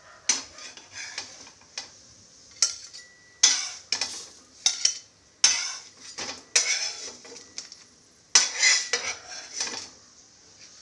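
Metal spatula scraping and clinking against a cast-iron tawa as rolled frankies are lifted off it: about ten sharp scrapes and clacks, some drawn out into a short rasp, with pauses between.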